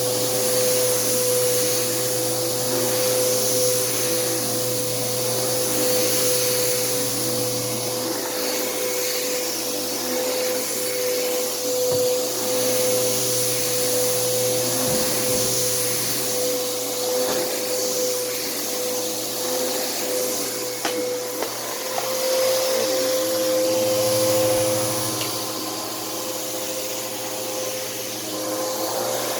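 Bissell CleanView bagless vacuum cleaner running on carpet, a steady motor whine over rushing air, its level rising and falling a little as it works.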